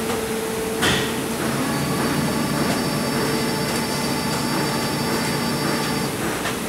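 Injection moulding machine running with its three-way stopcock mould closed: a steady mechanical hum and hiss, with a knock about a second in and a thin high whine from about two seconds in until near the end.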